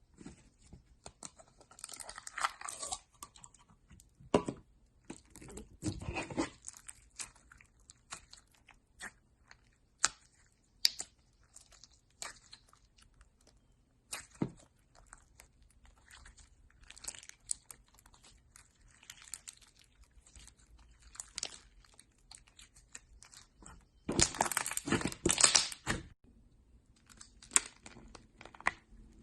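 Crunchy slime being squeezed and pressed by hand: irregular crackling and crunching in short bursts, with the longest, loudest run near the end.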